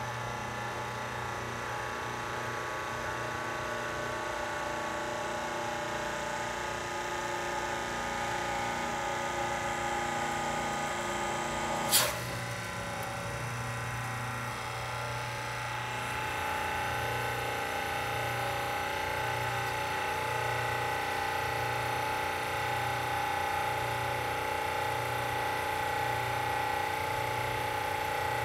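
Hydraulic press pump motor running with a steady hum while the ram squeezes toilet paper, with one sharp crack about twelve seconds in. Later the low hum starts pulsing about once a second as the ram lifts off.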